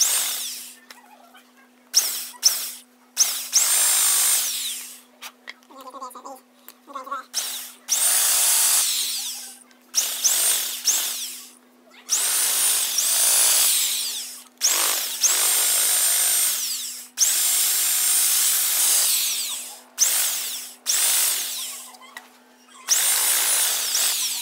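Corded electric drill with a long spiral wood bit boring through a wooden plank to enlarge holes, run in about ten short bursts of a second or two. The motor's whine rises as it spins up each time.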